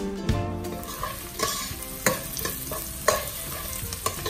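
Sliced garlic and onion sizzling in hot oil in a stainless steel pot, stirred with a metal spoon that scrapes and knocks against the pot about once a second as they are sautéed toward caramelizing.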